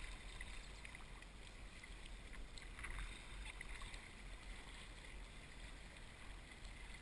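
Kayak paddling on a river: paddle blades dipping and splashing in the water and water washing along the hull, faint, with a few small splashes about three seconds in over a steady low rumble.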